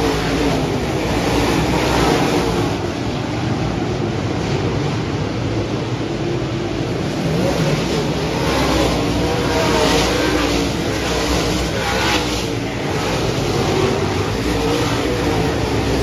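A field of dirt-track modified race cars running on the track, several V8 engines overlapping in a steady, loud, wavering engine noise.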